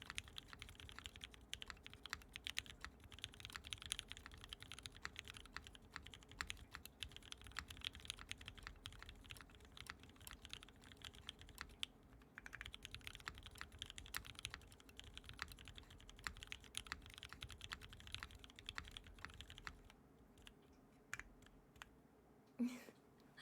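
Typing on a custom mechanical keyboard with lubed Gateron Black Ink linear switches: a fast, dense run of keystrokes that thins to a few scattered presses near the end.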